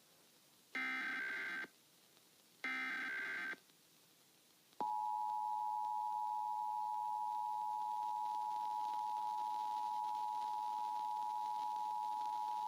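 Emergency Alert System alert opening on a broadcast relay of the National Periodic Test. Two short, buzzy bursts of the SAME digital header, each about a second long with a gap between them, are followed about five seconds in by the steady two-tone EAS attention signal, which holds without a break.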